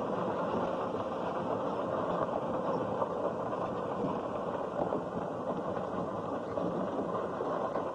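Steady running noise of a vehicle's engine and wheels, heard from on board while it moves along.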